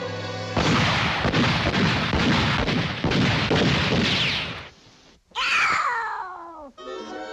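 Cartoon sound effects: a loud volley of shotgun blasts and explosions lasting about four seconds, then a whistle gliding down in pitch over about a second, the classic falling sound effect. Orchestral strings come back in near the end.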